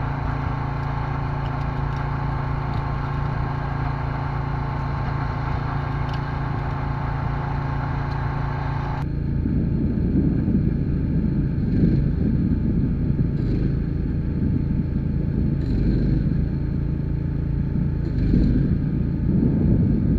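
A vehicle engine running steadily. About halfway through, the sound cuts abruptly to a lower, rougher rumble.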